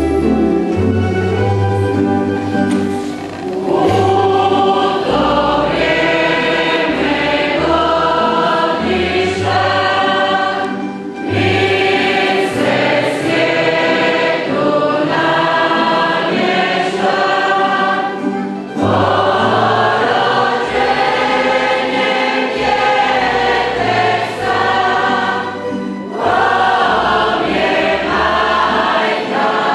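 A choir singing a Christmas song in phrases, with brief breaths between them, over a low bass line that steps from note to note.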